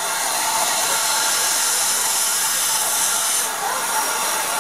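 Steam hissing steadily from Southern Railway Lord Nelson class 4-6-0 No. 850 as it stands at a platform, the hiss easing a little about three and a half seconds in.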